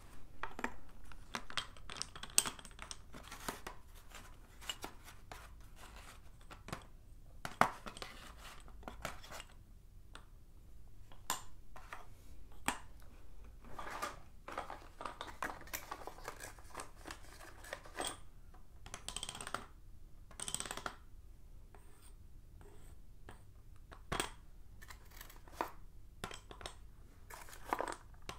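Sticks of chalk clicking and clinking against one another as they are picked up and laid down on each other. Irregular sharp taps come between short stretches of scraping where chalk slides over chalk.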